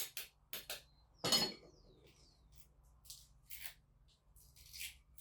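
Light clinks and knocks of dishes and utensils being handled during food preparation. There are a few short knocks early, a louder one about a second and a half in, then scattered faint clicks.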